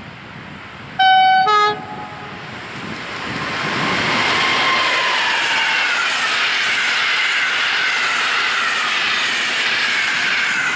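EU160 Griffin electric locomotive sounding a short two-tone horn about a second in, high note then low. Then the locomotive and its passenger coaches pass at speed: a loud, steady rush of wheels on rails, with whines slowly falling in pitch.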